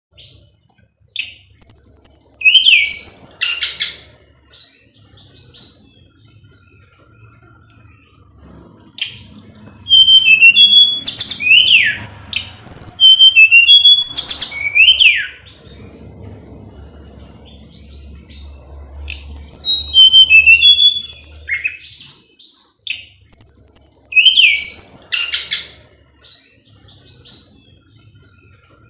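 Songbird known in Indonesia as tledekan gunung singing loudly: five bursts of high whistled notes and quick up- and down-sweeping chirps, each about two to three seconds long, with quieter short calls in the gaps between them.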